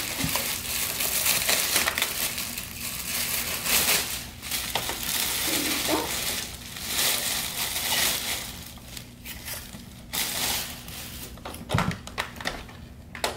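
Thin plastic packaging bag crinkling and rustling as it is pulled off a new upright vacuum cleaner, busy for most of the first ten seconds, then easing off. A few sharp knocks near the end as the plastic parts are handled.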